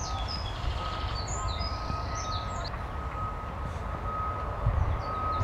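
Small songbirds chirping and trilling over a low, steady rumble, with a faint steady high tone running underneath.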